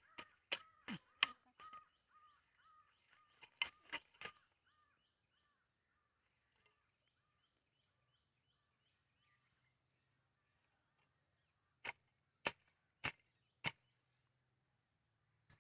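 Sharp snaps of a hand sickle cutting through leafy plant stems, in a quick cluster in the first few seconds and four evenly spaced strokes near the end. A fast run of faint, repeated bird calls sounds under the first several seconds.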